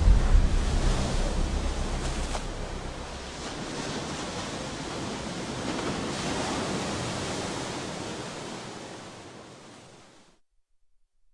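Cinematic sound-design rumble: a deep low boom dies away over the first few seconds into a broad hissing wash like surf, which swells again and then fades out to silence near the end.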